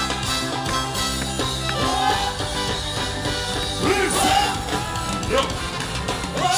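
Band music with a voice singing over a steady bass line, played through a sound system during a stage sound check.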